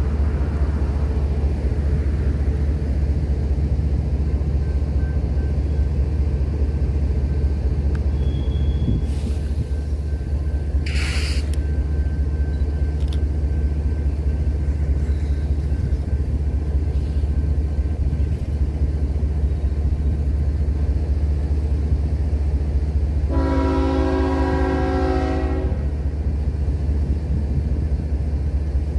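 Diesel locomotive running with a steady, heavy low rumble. About eleven seconds in there is a brief hiss. Then, about twenty-three seconds in, the locomotive horn sounds one long blast of about two and a half seconds, several tones sounding together as a chord.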